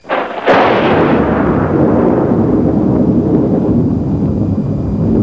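A sudden loud boom about half a second in, followed by a long, deep rumble that holds loud while its higher part slowly fades.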